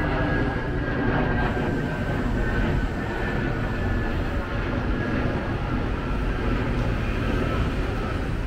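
Jet airliner passing overhead: a steady low rumble with a faint high engine whine that drifts slowly down in pitch.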